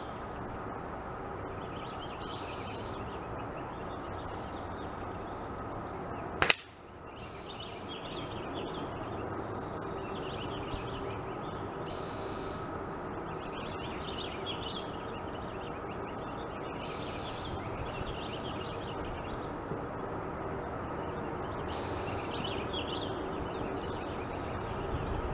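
A single sharp crack of a .177 air-rifle shot about six seconds in, over steady outdoor background noise. A bird calls repeatedly with short high notes every few seconds.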